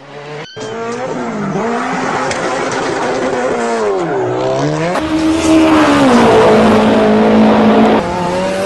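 Racing car engine revving, its pitch dropping and climbing several times, with tyre squeal. It is laid over the picture as a sound effect.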